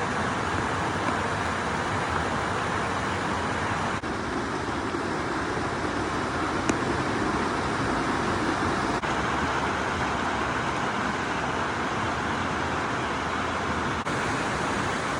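Stream water flowing, a steady, even rush.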